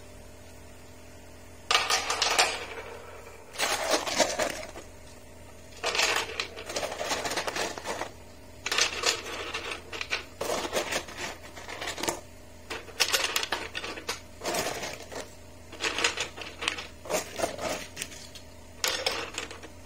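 Rugby-ball-shaped Mayin Rugby filter media pieces clattering and clicking against each other and the glass bottom of an aquarium top-filter chamber as handfuls are put in. About ten bursts come a second or two apart, starting about two seconds in.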